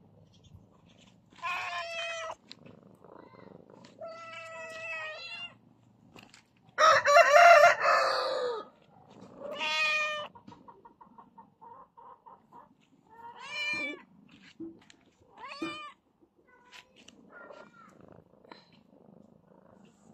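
Domestic cats meowing, about six separate meows a few seconds apart, the loudest a long, harsh call about seven seconds in, with a few fainter short calls near the end.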